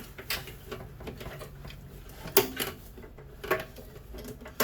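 Wire cutters snipping the copper wiring out of a microwave: a handful of sharp, separate clicks, the loudest about halfway through, over a faint steady hum.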